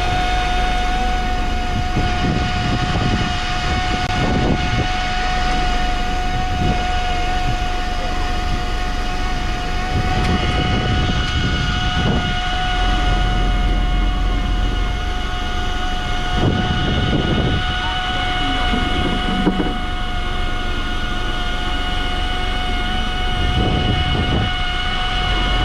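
Fishing boat's engine running steadily: a constant low rumble with a steady high whine over it.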